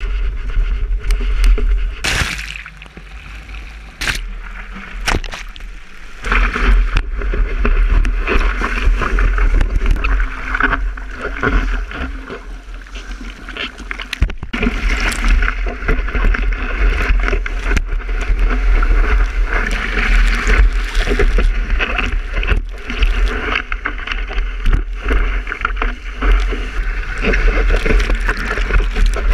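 Wind rumbling on an action camera's microphone, with water rushing and splashing around the camera as it rides a surfboard through white water. It is quieter for a few seconds early on, then louder and rougher from about six seconds in.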